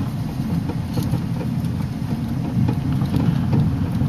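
A car driving along a paved road, heard from inside the cabin: a steady low rumble of engine and tyre noise.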